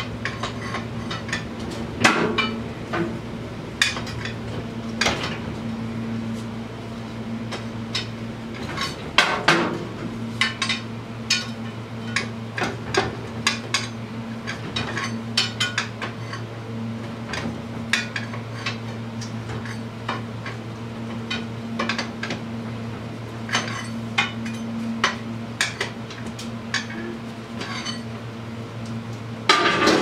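Irregular sharp metal-on-metal clinks and taps as a screwdriver and pry bar work at the rear axle sleeve of a Polaris Scrambler ATV, over a steady low hum.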